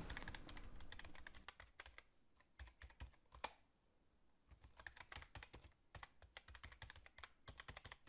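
Faint computer keyboard typing: quick, irregular key clicks, thinning out for a moment about halfway through.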